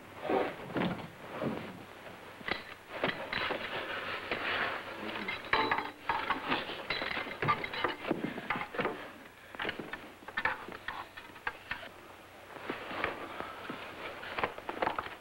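Scuffling with many short knocks and thumps as a man struggles with someone in a gorilla suit, heard on an old, dull-sounding film soundtrack.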